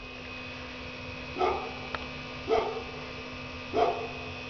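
A dog barking, three short barks about a second apart, over a steady electrical hum.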